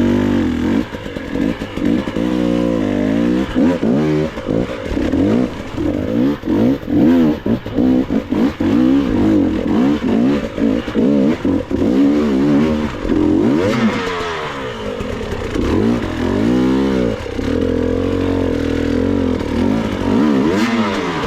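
Enduro dirt bike engine revving up and down again and again in quick throttle blips as it is ridden up a rough, steep trail. A harder, louder burst of throttle comes about fourteen seconds in.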